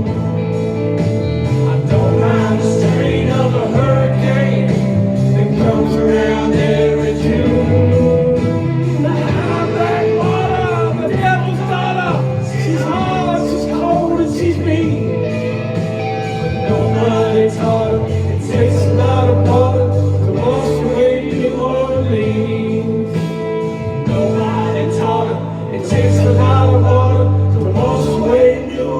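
Music: a passage of the song with no sung lyrics, a melody line bending in pitch over sustained bass notes.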